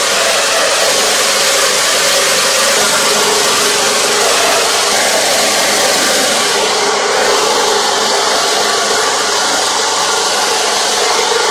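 Power-driven grinding mill running steadily as it grinds fresh coconut: a loud, even, unbroken machine noise.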